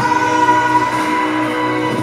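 Song music with long held notes, continuous with the sung parody around it.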